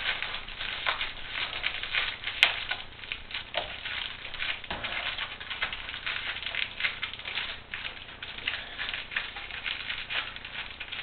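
Reflective foil bubble-wrap insulation crinkling and crackling as it is handled and pushed into place in a garage door panel: a run of irregular small crackles, with one sharp click about two and a half seconds in.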